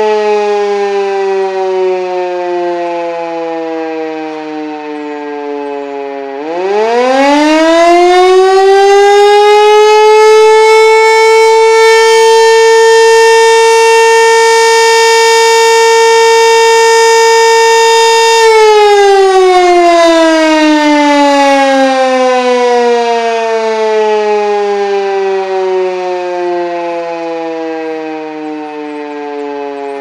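Elektror S3 rotary siren winding down with falling pitch, then about six seconds in spinning up quickly to a loud, steady tone held for about twelve seconds, then winding down slowly with the pitch sinking to the end. This is one blast of the German fire-alarm signal, a one-minute tone broken twice.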